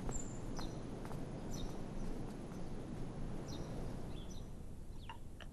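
Outdoor ambience: a steady low background rumble with small birds chirping in short, high, falling notes about once a second. The rumble thins near the end.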